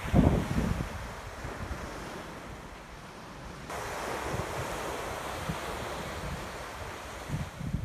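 Ocean surf washing on a beach, a steady hiss that grows louder about halfway through, with wind gusting on the microphone as a low rumble.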